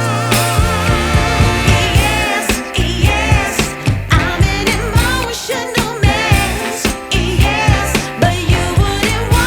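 Background music with a singing voice and a steady beat.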